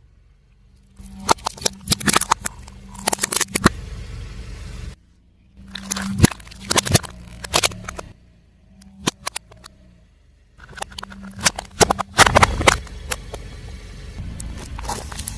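A car tyre rolling over and crushing crunchy objects: bursts of sharp crackling and snapping over the steady low hum of the car's engine. It comes in three stretches broken by sudden short silences.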